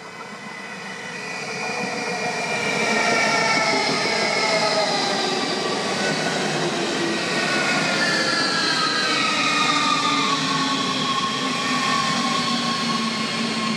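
Rhein-Ruhr-Express Siemens Desiro HC electric multiple unit arriving at a station, growing louder over the first three seconds. The whine of its traction drive, in several tones, glides slowly down in pitch as the train slows for the stop, over steady rolling noise from the wheels.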